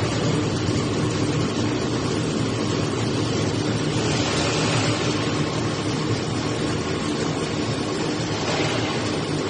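Brush roller washing machine running: a steady mechanical noise with a low motor hum under it.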